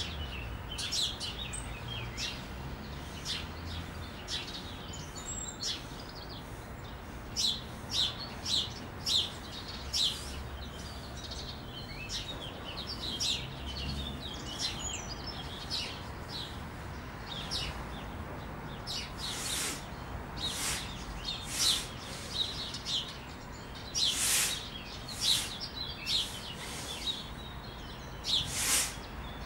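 Small birds chirping over and over. In the second half come several sharp, forceful breaths out in quick groups, exhales pushed out by abdominal contractions.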